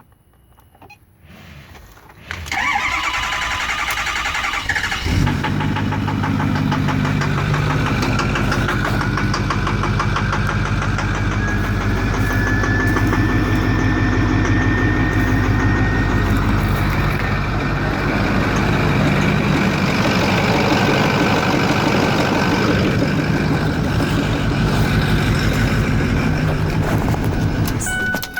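Ford 6.4 L Power Stroke V8 turbo-diesel in a 2008 Super Duty cranking and starting after a couple of seconds, then running with a steady knock, with a whine rising in pitch, and shut off near the end. The knock comes from a faulty new remanufactured fuel injector.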